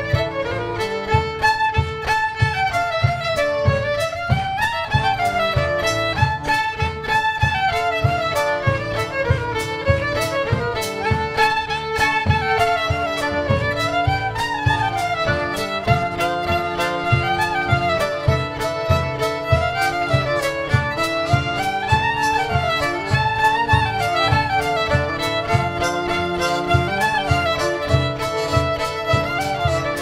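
Live folk band playing an instrumental, a fiddle leading a melody that climbs and falls over and over above held low notes and a steady beat.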